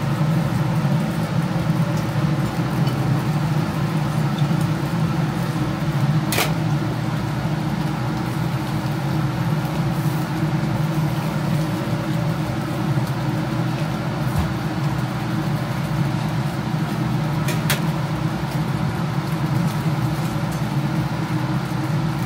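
Steady drone of a kitchen ventilation fan running over a charcoal eel grill. Two short sharp clicks sound about six seconds in and again about eleven seconds later, as metal skewers are handled on the grill.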